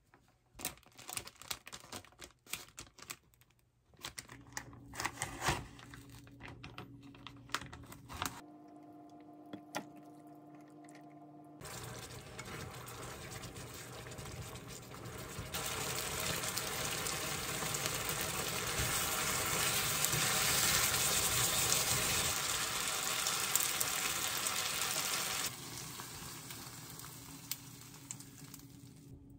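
Clear plastic food containers clicking and crinkling as they are handled. Then cream-sauce pasta with meatballs sizzling and bubbling in a frying pan on an induction hob, stirred with chopsticks. The sizzle grows louder and steadier partway through and drops off sharply near the end.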